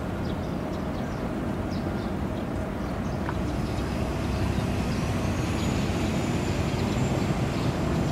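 Steady low rumble of ship engines from a destroyer and the harbour tugs escorting it out, growing a little louder about halfway through. Faint short high chirps are scattered through it, and a thin high whine comes in near the middle and holds.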